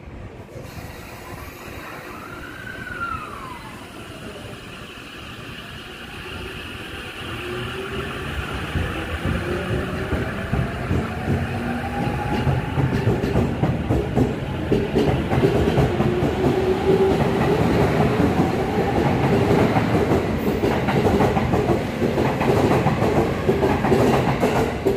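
E231-500 series electric commuter train pulling away from a standstill: its motor whine rises steadily in pitch as it picks up speed, over a rumble of wheels on rail that grows louder until the cars are rushing past. Near the start a short tone rises and falls once.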